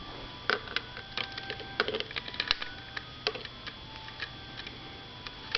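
Irregular light clicks and taps, about a dozen, over a faint steady hum: hard plastic parts being handled while an RC helicopter is readied for flight, its rotor not yet spinning.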